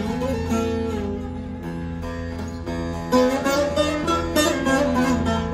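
Divan bağlama with a padauk bowl and spruce top being played. A quick run of plucked notes softens into a few slower ringing notes with a sliding pitch, then fast strumming comes back loudly about three seconds in.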